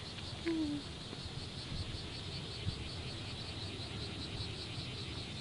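Insects chirping in a steady, fast pulsing rhythm of several chirps a second, with a brief low pitched sound about half a second in.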